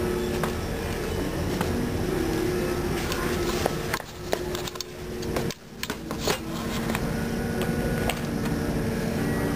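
Craft-store ambience: a steady indoor hum with faint background music, and scattered clicks and rubs from a handheld camera being swung around, the sound briefly muffled a little past halfway.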